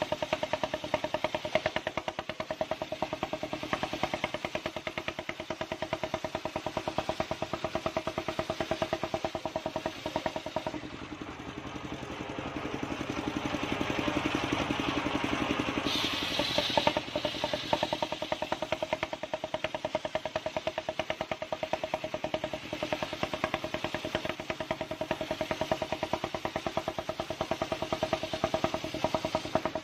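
Engine of a table-mounted circular sawmill ('serkel') running with a steady pulsing note. For several seconds in the middle the note sinks under a harsher rising noise, then it settles back to the steady run.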